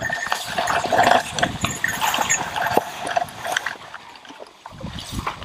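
Someone wading through wet marsh grass and shallow water: irregular squelching, splashing steps with the crackle and rustle of grass stems, thinning out about four seconds in.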